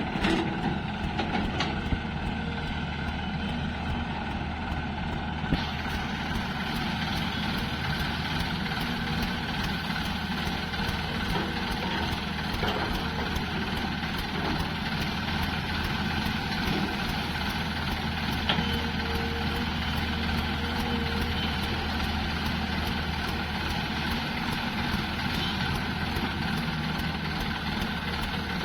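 Diesel engines of an excavator and a tractor running steadily with a constant low hum, with a few small knocks.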